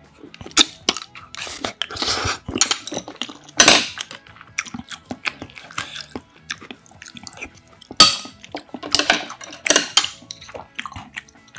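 Close-miked eating sounds: chewing and wet mouth sounds, several loud sips of broth, and a metal spoon clinking against a glass soup bowl.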